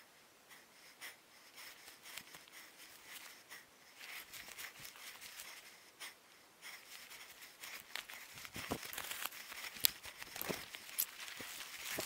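Footsteps through dry leaf litter and brush, with twigs crackling and snapping and branches brushing against clothing; the crackling gets busier and louder about two-thirds of the way in.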